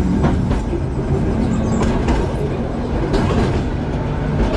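Sydney O-class tram running along the track, heard from inside its wooden cab: a steady rumble of wheels on the rails, broken by scattered sharp clicks.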